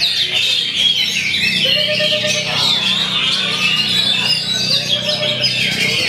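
Oriental magpie-robin singing a fast, continuous stream of varied chirps and whistles, with a low steady hum underneath.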